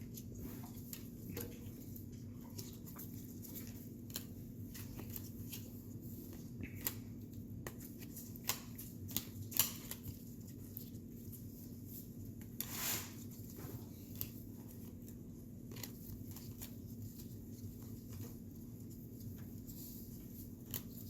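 Baseball trading cards being handled and sorted on a glass table: scattered soft clicks and rustles, with one louder rustle about two-thirds of the way through, over a steady low hum.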